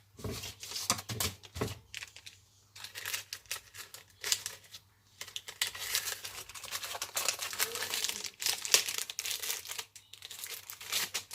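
Paper and plastic packaging crinkling and rustling as the packet of paperwork from a headphone box is handled and opened, with irregular crackles that grow denser after the first few seconds and a few soft knocks near the start.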